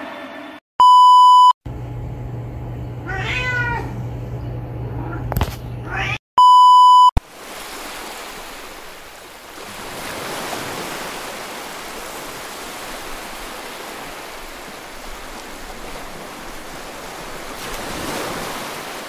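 Two loud, flat electronic beeps, each about a second long and some five seconds apart. Between them are a low hum and a short wavering, rising cat-like call, and after them a steady soft hiss.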